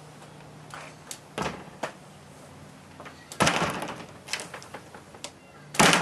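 A door swinging shut onto a homemade magnetic latch of brass tubes: light clicks and knocks, then a loud thud with a short rattle about three and a half seconds in as the door closes and the latch catches. Just before the end the door is shut hard with a louder bang.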